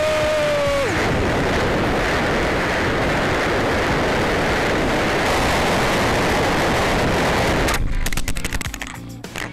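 Onboard audio from a twin-propeller RC plane: a steady motor whine drops in pitch about a second in and gives way to loud rushing wind buffeting the microphone as the plane banks and dives. About eight seconds in it hits the ground with a burst of sharp knocks and clatter, then quieter scraping and rattling.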